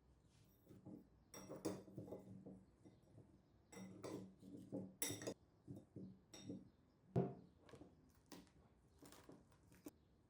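Kitchen utensils clinking and knocking against bowls and dishes in an irregular run of taps and clinks, with one louder knock about seven seconds in.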